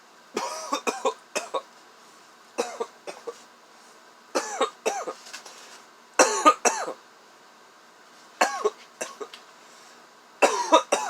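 A man coughing in about six short fits a second or two apart, his throat irritated by harsh tobacco smoke from a pipe.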